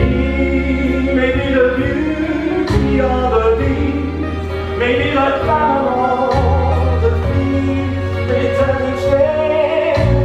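A man singing a serenade in long held notes with vibrato, over instrumental accompaniment of sustained low notes that change every second or two.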